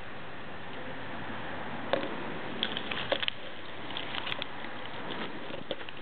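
Steady hiss with scattered light clicks and crackles, typical of a handheld camera being handled and shifted; no train is heard yet.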